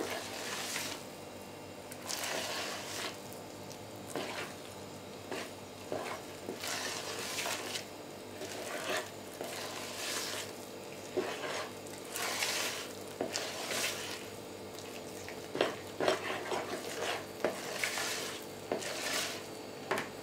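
A metal spoon stirring thick, airy cottage-cheese batter in a plastic bowl: an uneven run of soft swishes and scrapes, the strokes coming faster in the second half.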